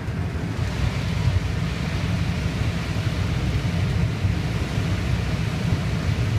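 Combine harvester running while picking corn: a steady, heavy low drone with machinery noise over it that fills out about half a second in.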